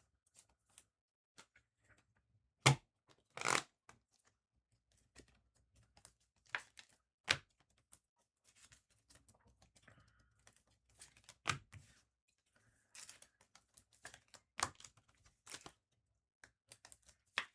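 Trading cards and foil pack wrappers being handled: scattered sharp clicks, taps and short rustles, the loudest snap a little under three seconds in.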